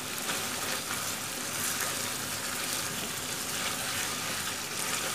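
Giant freshwater prawns and taro in a thick spice gravy sizzling steadily in a frying pan as they are stirred with a spatula: the masala being sautéed down with a little water.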